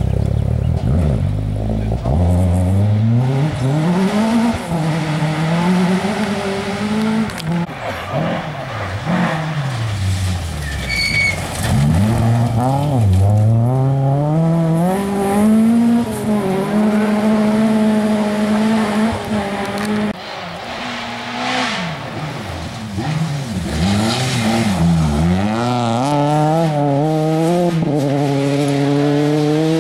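Rally car engines revving hard on a gravel stage, the pitch climbing, dropping and climbing again with each gear change and lift as the cars power through a corner one after another.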